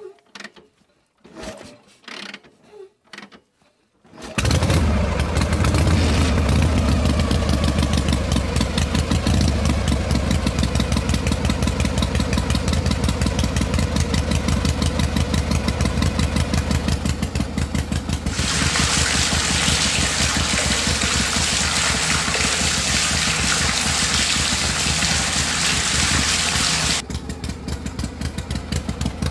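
A few faint clicks, then a small engine starts about four seconds in and runs with a steady, rapid putter. A louder hissing noise joins over it for about eight seconds in the second half.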